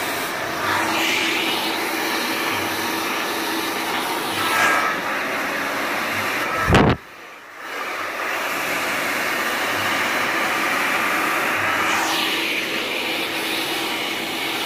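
A powerful salon hair dryer blowing steadily into the hair over a round brush. Its rushing tone shifts a little as it is moved, and it drops out briefly about seven seconds in before returning.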